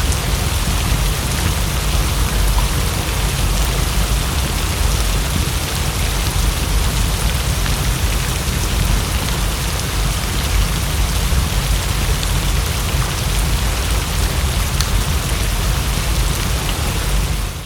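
Steady heavy rain, a dense even hiss with a deep low rumble underneath and scattered faint ticks of drops; it drops away at the very end.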